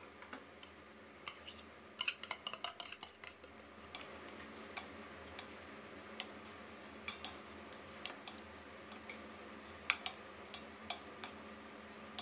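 Plastic spoon clicking and scraping against a stainless steel bowl and metal pot as glass noodles and minced pork are scraped out and stirred into the dressing. A quick run of clinks about two seconds in, then sparser ticks.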